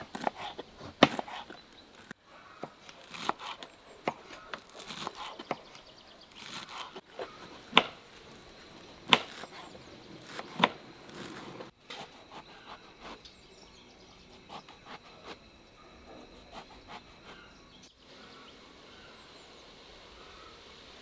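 Kitchen knife chopping green onions on a wooden cutting board: irregular sharp taps, a few much louder than the rest, thinning out to occasional faint taps over a steady faint outdoor background.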